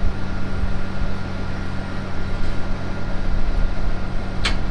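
Versatile 365 tractor's diesel engine idling steadily, with a couple of sharp knocks near the end.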